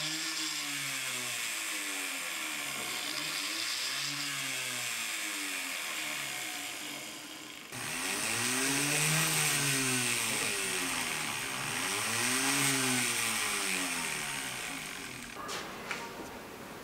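A jeweller's rotary tool spinning a rubber polishing wheel, speeding up and slowing down again and again while a small metal piece is held against it: its whine rises and falls in slow arcs a few seconds apart. It gets louder about eight seconds in.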